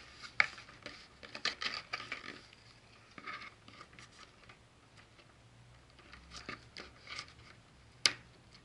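Small scissors snipping at a wire twist tie fastened through a cardboard box, with scattered clicks and rustles of the cardboard being handled; a sharp snip about eight seconds in as the tie is cut.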